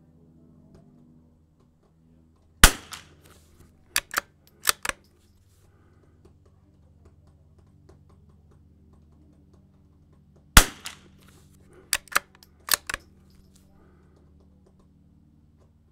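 Two shots from a bolt-action .22 LR sporter rifle firing Lapua Super Long Range rounds, about eight seconds apart. After each shot come four quick metallic clicks in two pairs as the bolt is worked by hand to eject the case and chamber the next round.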